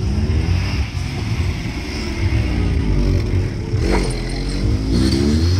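Car engines pulling away and accelerating, their pitch rising again and again as each car speeds up.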